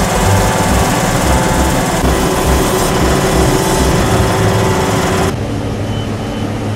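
Foam concrete machine running: the truck-mounted screed pump with its air compressor and foam generator makes a loud, steady mechanical din with a rhythmic low pulsing. About five seconds in it changes to a quieter, duller running hum.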